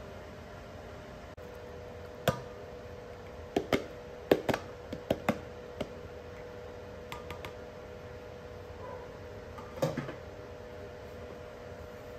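White disposable bowl tapped and knocked against a stainless steel dog bowl to shake out fresh dog food: a string of sharp knocks between about two and six seconds in and a few more near ten seconds, over a steady hum.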